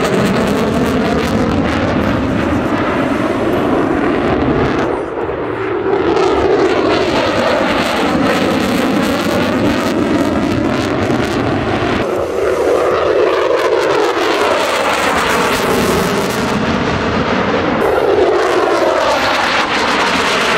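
F-22 Raptor's twin afterburning turbofan jet engines running at high power during hard manoeuvres. It is a continuous loud roar with a phasing whoosh that sweeps up and down in pitch again and again as the jet turns and passes.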